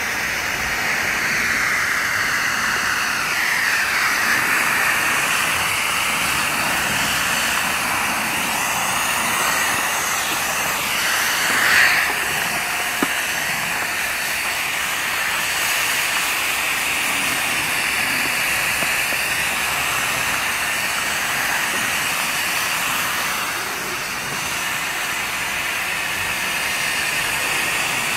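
Sprayer nozzle hissing steadily as it sprays a fine mist of liquid fertilizer over seedling trays, swelling briefly about twelve seconds in.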